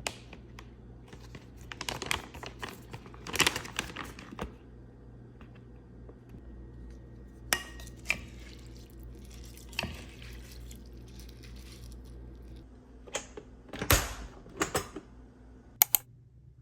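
Kitchen clatter: dishes and utensils clinking and knocking in short, scattered bursts over a steady low hum.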